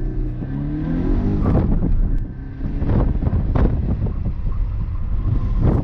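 2015 Subaru BRZ's 2.0-litre flat-four boxer engine accelerating hard, heard from inside the cabin, its pitch rising through the first second or so. After that it blends into rough rushing noise, with a short dip about two and a half seconds in and several sharp thumps as speed builds.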